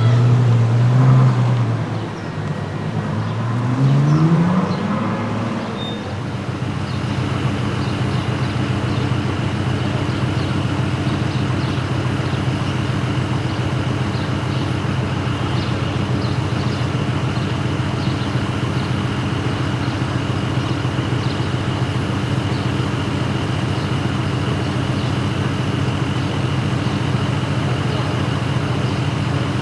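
A car engine revs with rising pitch a few seconds in, then settles into a long steady idle with a faint high whine above it.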